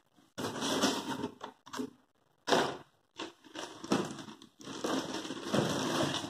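Plastic packaging crinkling and rustling as it is handled and pulled out of a cardboard box, in several loud bursts of a second or two each.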